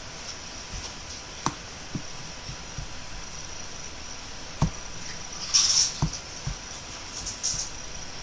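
Steady low background hiss with a few scattered faint clicks and knocks, and a brief rustle of higher hiss about five and a half seconds in.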